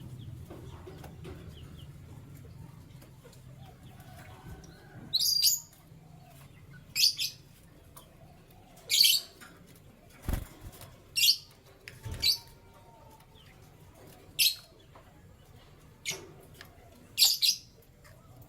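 Canary giving short, sharp high-pitched chirps, one every second or two, with a single low thump about ten seconds in.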